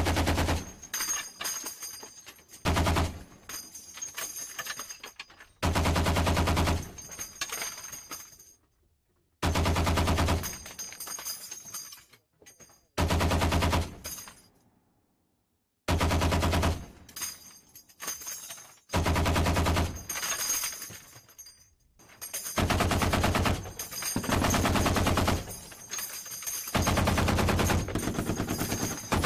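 Browning M2 .50-calibre heavy machine gun firing in repeated short bursts of rapid shots, a few seconds apart, each burst trailing off in an echo. The later bursts, near the end, are the longest, at about two seconds each.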